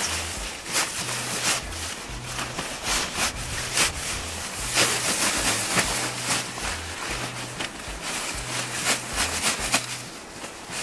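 Coated Oxford-fabric tent and its carry bag rustling and scraping in repeated short strokes as the tent is pulled into the bag. Background music with a steady, repeating bass line runs underneath.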